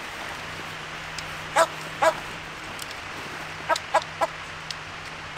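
Dog barking in short, sharp barks: two about a second and a half in, then a quick run of three near the four-second mark.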